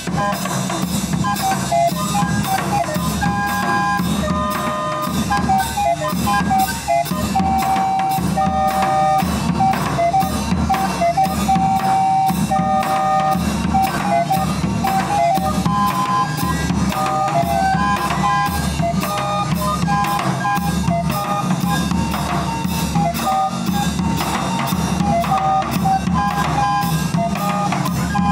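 Chilean street barrel organ (organillo), hand-cranked, playing a melody, with a chinchinero's chinchín keeping a steady beat. The chinchín is a bass drum worn on the back and struck with long sticks, with cymbals on top clashed by a cord from the foot.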